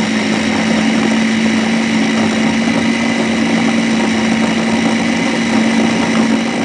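Electric food processor running steadily, grinding raw chicken skin into a paste, with a loud even motor hum.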